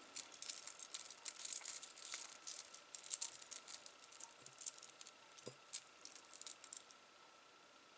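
Small metal jewelry handled up close: quick light clicks and jingles of a chain and clasp being worked open, with one soft knock about five and a half seconds in, dying away near the end.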